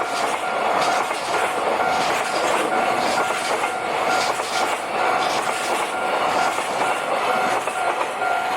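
Freight train rolling through a level crossing, its wheels clattering over the rail joints in a steady stream of clicks. Over it the crossing's warning bell rings with a steady tone throughout.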